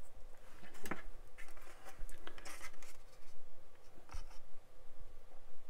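Fingers handling small plastic model-kit parts: scattered light clicks and rubbing of plastic against plastic as a cockpit part is offered up to a fuselage half.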